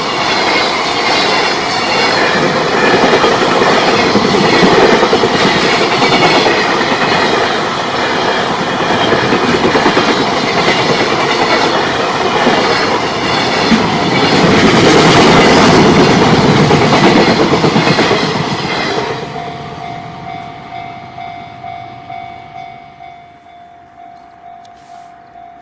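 A JR Freight container train hauled by an EF210 electric locomotive running past at close range, its wheels loud and continuous on the rails, loudest around two-thirds of the way through, then dying away about nineteen seconds in as the last wagons clear. After the train has gone, the level-crossing alarm keeps ringing in an even, pulsing tone of about two rings a second.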